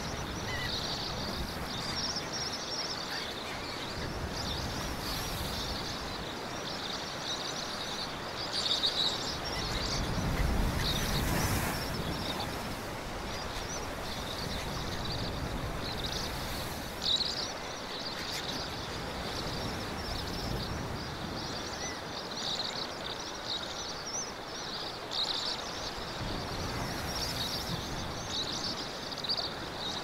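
Seaside ambience: a soft wash of sea waves under a dense, high-pitched chorus of chirping that never stops. A louder swell of surf comes around ten to twelve seconds in.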